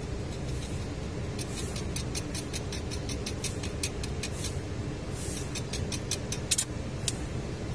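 Stick welding on a crack in a 7-ton forklift's tilt cylinder: irregular sharp crackles and clicks from the electrode begin about a second and a half in, loudest about six and a half seconds in. A steady low machine hum runs underneath.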